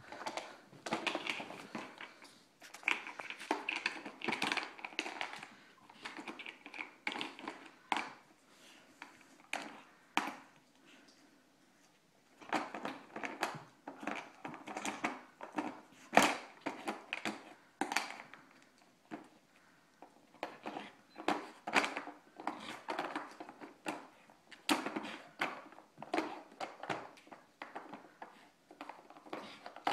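Standard poodle puppy working a Nina Ottosson Dog Casino puzzle: irregular clacks, knocks and scrapes of the plastic drawers and board as she paws and noses at them. The clatter pauses for a couple of seconds about eleven seconds in.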